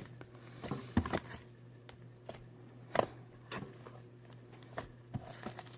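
Quiet, scattered soft clicks and small squishes, typical of slime being handled and worked by hand, over a faint steady low hum.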